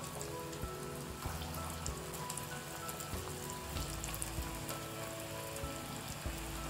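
Bondas of rice batter deep-frying in hot oil: a steady crackling sizzle with fine pops. Soft background music plays along with it.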